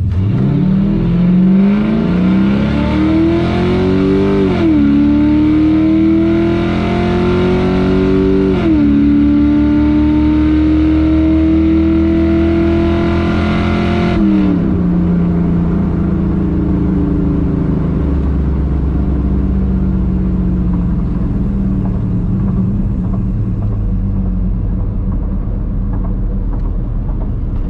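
Stock 6.0-litre LQ4 V8 in a Chevy S10 at wide-open throttle on a quarter-mile pass, heard from inside the cab. It revs up from the launch, and the 4L80 automatic's upshifts drop the pitch about four and a half and eight and a half seconds in. About fourteen seconds in the throttle closes and the engine falls to a lower, steady run as the truck coasts.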